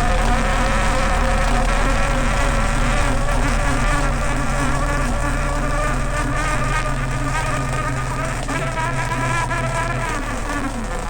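A motor running steadily, with a buzzing hum whose tones waver up and down, easing slightly near the end.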